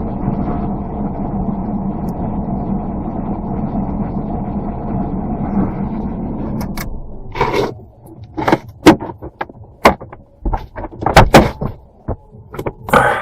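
A vehicle's engine running steadily with road rumble as it turns around; about seven seconds in the engine noise stops and a series of sharp clicks and knocks follows.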